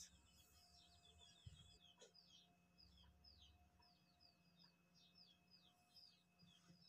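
Near silence, with birds chirping faintly in the background: a quick string of short, high chirps over a faint steady hum.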